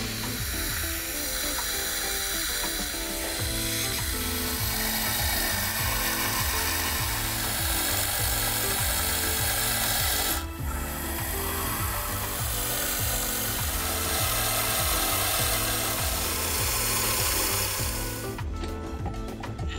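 Metal cutting as holes are drilled and countersunk in a metal bar: a steady cutting noise that breaks off briefly about ten seconds in and stops shortly before the end. Background music with a pulsing bass runs underneath.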